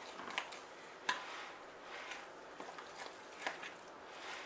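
A fork stirring thick beer bread batter in a glass mixing bowl: soft, faint scraping and squishing, with a few sharp clicks of the fork against the glass.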